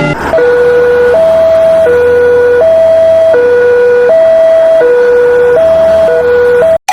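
Two-tone hi-lo siren, like an ambulance's, switching back and forth between a higher and a lower note about every 0.7 seconds, then cutting off suddenly near the end.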